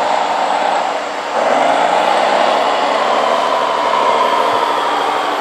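Radio-controlled scale truck driving under load, its drive running with a steady whine. It dips briefly about a second in, then comes back louder and rises in pitch.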